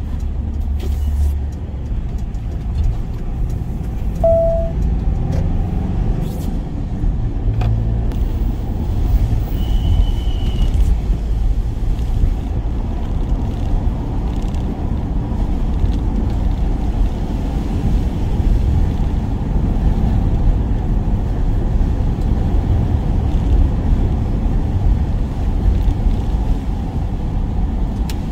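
A van on the move: steady engine and road rumble, with a short beep about four seconds in and a brief higher tone around ten seconds.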